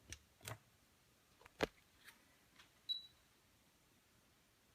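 A handful of separate clicks while the amp dyno is set for the next load test, the loudest about a second and a half in. Near three seconds a click comes with a short high beep. Between the clicks it is near silence.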